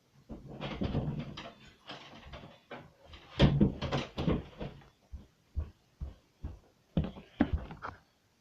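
Small plastic toy figures and props being handled, with irregular clattering and rustling, then a string of separate sharp taps against a hard surface.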